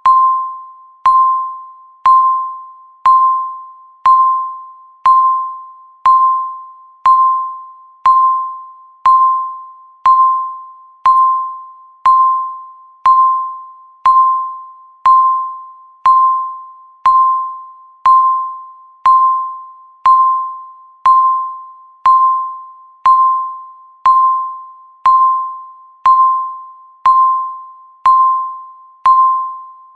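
Countdown timer beeping once a second: a single mid-pitched electronic tone, each struck sharply and fading away before the next, ticking off the seconds left.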